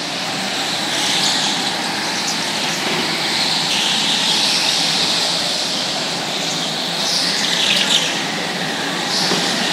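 Small go-kart engines buzzing as several karts lap an indoor track, with repeated high tyre squeals, each lasting a second or so, as they slide through the corners.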